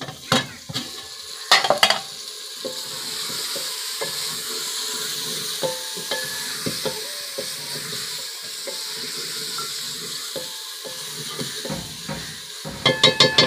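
Metal ladle stirring and scraping chicken-and-potato curry in a metal pot over a wood fire: the masala sizzles steadily while the ladle clinks and knocks against the pot, loudest about a second and a half in.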